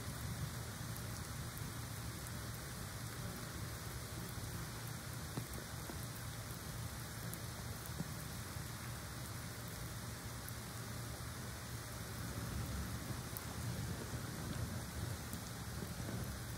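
Steady rain falling, a constant hiss with a few faint drips, over a steady low hum.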